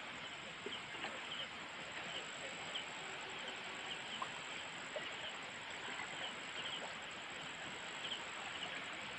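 Night-time outdoor insect chorus: a steady hiss with a thin high whine and short high chirps, often in pairs, at irregular intervals.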